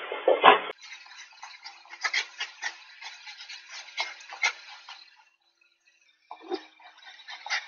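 Two golden retrievers play-fighting: irregular scuffling with sharp ticks and clicks of paws and claws on the floor, sounding thin as picked up by a pet camera's microphone. It breaks off for about a second a little after five seconds in, then resumes.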